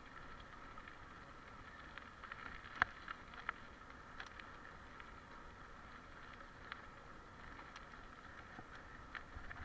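Mountain bike rolling along a rough dirt forest track: a faint steady rolling noise with scattered sharp clicks and knocks as it goes over bumps, the loudest about three seconds in.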